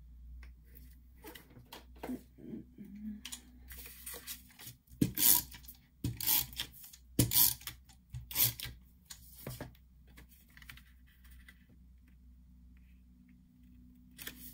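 Cardstock and paper being handled on a desktop while a card is assembled, with a run of sharp clicks and knocks about five to ten seconds in, then quieter rustling.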